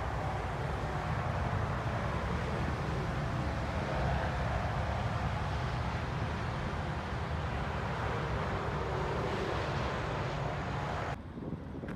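Steady roar of traffic on the nearby interstate highway. About a second before the end it cuts abruptly to quieter, gusting wind on the microphone.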